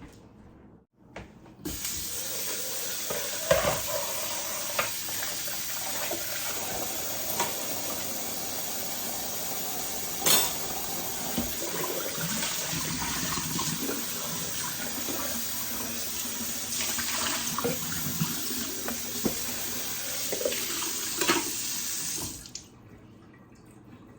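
Kitchen tap running into the sink while an item is rinsed out by hand, the water rushing steadily for about 20 seconds with scattered clinks and knocks of dishes against the sink, then shut off abruptly near the end.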